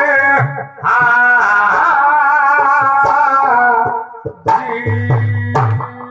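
Live singing with instrumental accompaniment: a voice carries a wavering melody until about four seconds in, then breaks off, and sharp hand-drum strokes with deep thumps sound over a steady held note.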